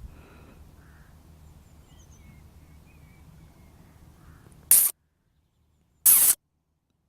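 Quiet outdoor ambience with faint bird chirps, then two short, loud bursts of noise about a second and a half apart, each cut off into dead silence.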